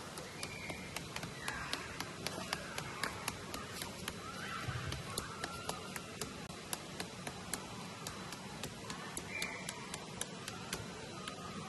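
Tent pegs being hammered into the ground: a steady run of sharp taps, about three a second.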